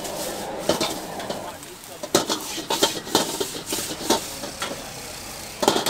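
Metal ladle clanking and scraping against a wok as noodles are stir-fried, with repeated sharp knocks over a steady sizzle. One of the loudest knocks comes near the end.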